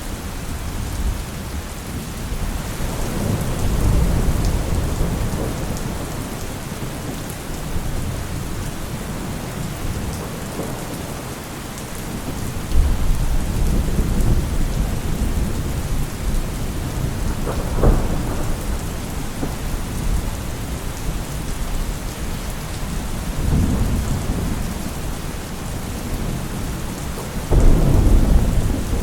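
Heavy rain falling steadily with rolls of thunder rumbling again and again, a sharper thunderclap about two-thirds of the way through and a loud roll near the end.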